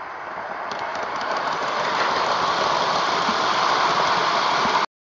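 Garden-scale model train, an electric diesel locomotive with a rake of goods wagons, running on the rails with a steady rumble of wheels and motors that grows louder as it approaches. It cuts off abruptly just before the end.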